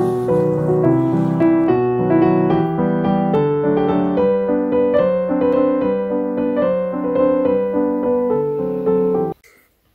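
Background music: a soft solo piano waltz, a steady run of notes that stops abruptly about nine seconds in. A faint frying sizzle sits under the first second or so.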